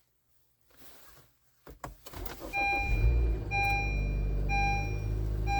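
2018 Honda Fit engine cold-starting after an overnight soak: a few clicks, brief cranking, then it catches about two seconds in and idles steadily with no VTC rattle, the sign that the new VTC actuator spring has cured the cold-start rattle. A dashboard warning chime beeps about once a second once the engine is running.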